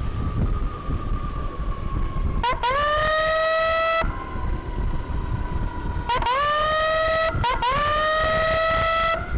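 Electronic emergency siren blasting three times: each blast sweeps up quickly to a steady, loud tone and cuts off sharply. A fainter steady siren tone sounds in the gaps, over constant road and engine rumble.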